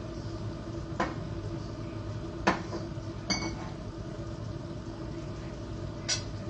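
A few sharp knocks of kitchenware and one short ringing clink of glass or china about three seconds in, over a steady kitchen hum.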